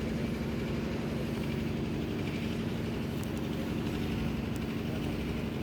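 Multirotor drone's propellers humming steadily at an even pitch.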